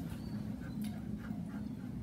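Goldendoodle panting softly in short, regular breaths, with a faint click about a second in.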